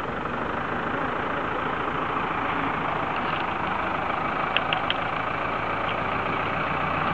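Engine of the vehicle moving a mobile home, running steadily at idle, with a few short clicks about four and a half seconds in.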